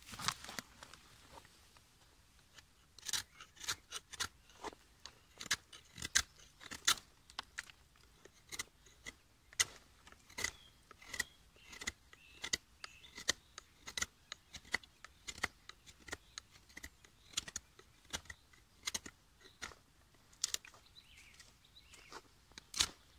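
Gerber folding knife whittling a wooden stick: a series of short, sharp shaving cuts, irregular, about one or two a second.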